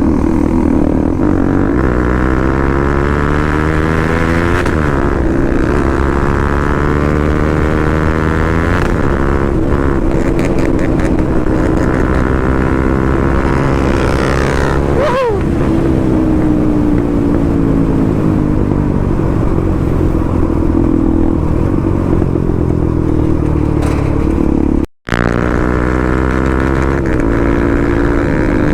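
Motorcycle engine running while riding, its pitch repeatedly climbing and dropping as the rider accelerates and shifts gears. The sound cuts out for an instant about 25 seconds in.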